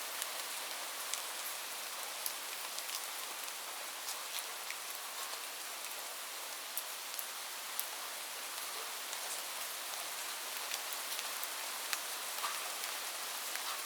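Steady rain: an even hiss with scattered sharp ticks of individual drops striking.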